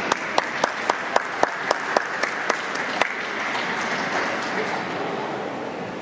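Audience applauding, with one person close by clapping steadily about four times a second; the close claps stop about three seconds in and the applause slowly dies down.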